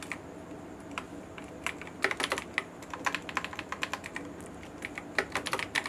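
Computer keyboard typing: short bursts of keystroke clicks with brief pauses between them.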